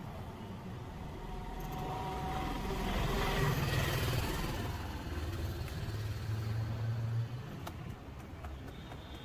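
Street traffic: a steady low engine hum with a motor vehicle passing, its noise swelling about three to four seconds in and then fading, and a few faint clicks near the end.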